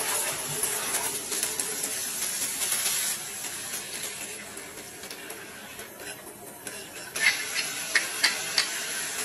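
Oil sizzling in a frying pan with cherry tomatoes cooking in it. Near the end come a few sharp clicks as a wooden pepper mill is turned over the pan.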